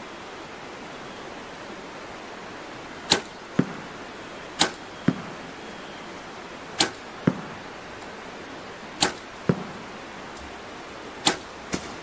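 Mathews Title 38 compound bow shot five times in a row: each release gives a sharp snap, followed about half a second later by a duller thud of the arrow striking the target.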